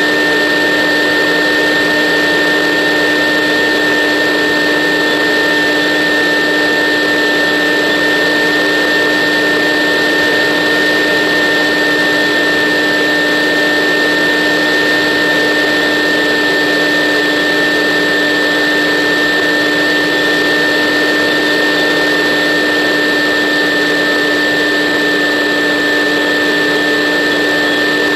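Electric motor and propeller of a battery-powered model aircraft running at a steady, constant speed in flight: an unchanging whine over a hiss of rushing air.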